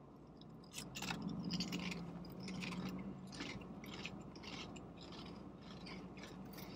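People chewing crunchy ghost pepper chips: an irregular run of crisp crunches starting about a second in, over a low steady hum.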